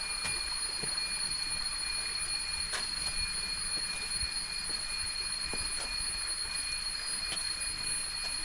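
Jungle insects droning in a steady, high-pitched whine at several pitches at once, with a few faint clicks.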